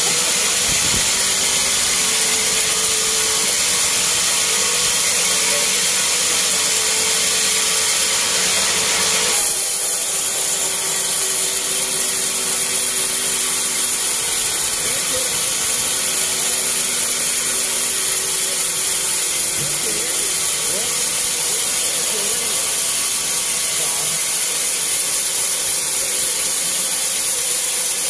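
Haita band sawmill ripping a teak log into thin boards: a loud, steady sound with a strong high hiss, which shifts abruptly about nine seconds in.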